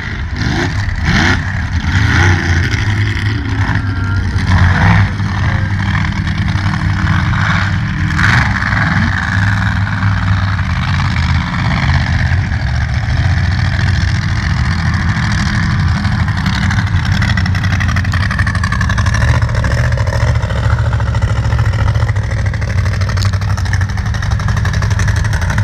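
Mega truck engines running hard at high revs as two trucks race over a dirt course, one of them a supercharged 'blower' engine; loud and continuous, with the revs rising and falling near the start.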